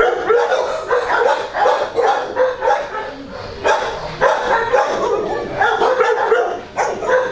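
Kennelled shelter dogs barking and yipping over and over, the barks following one another closely, a little quieter for a moment about three seconds in.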